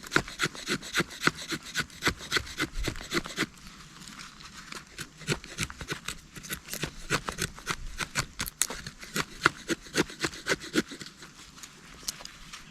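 Fixed-blade knife shaving curls off a stick of hard wood: a run of quick scraping strokes, a few each second, a little softer after the first few seconds.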